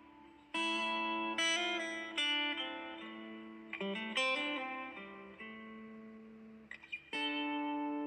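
Background guitar music: plucked guitar chords, each struck and left to ring and fade, a new one every second or so.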